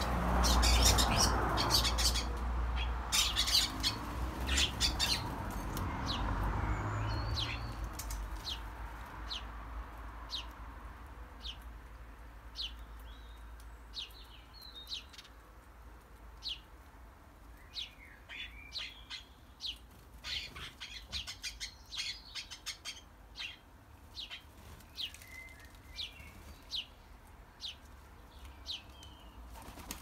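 Sparrows chirping over and over in quick clusters, with the wingbeats of birds coming and going at the feeders. A broad rushing noise, loudest at the start, fades away over the first ten seconds.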